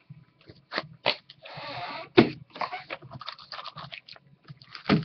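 Trading-card pack wrapper being handled and torn open: crinkling and crackling, with a few sharp taps and knocks.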